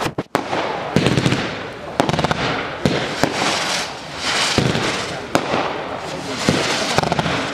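Fireworks display: a rapid run of sharp bangs from bursting shells, about one a second, over continuous dense crackling from crackling stars and comet tails. The sound drops out briefly just after the start.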